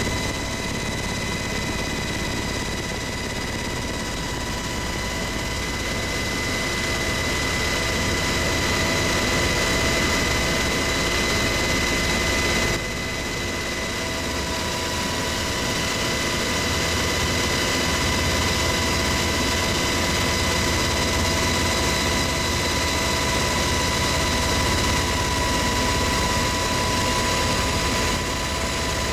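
UH-60 Black Hawk helicopter heard from inside the cabin in flight: a steady engine and rotor drone with several high, unchanging whines over it. The level drops briefly near the middle.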